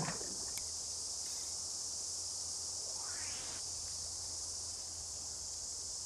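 Steady high-pitched buzzing chorus of cicadas, with a short falling sound right at the start and a short rising whistle about three seconds in.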